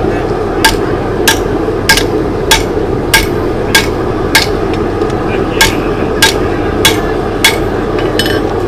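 Hand hammer striking hot steel on an anvil, a steady rhythm of about one ringing blow every 0.6 s with a brief pause about halfway through, while a blade is forged from scrap metal. A steady roar lies beneath the blows.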